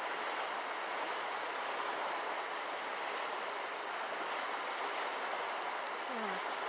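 Creek water rushing steadily, an even hiss with no break.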